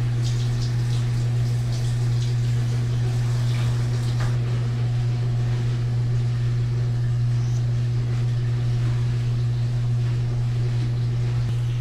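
A steady low hum, with faint soft rubbing as shampoo is worked into a dog's wet coat by hand.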